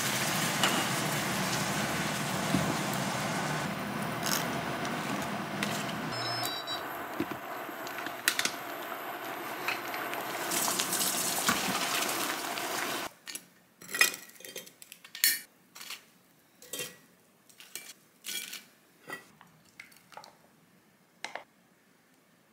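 Pot of noodles at a rolling boil: a steady watery hiss with a few clinks, which cuts off suddenly about 13 seconds in. Then come separate light clicks and taps of kitchen utensils, roughly once a second.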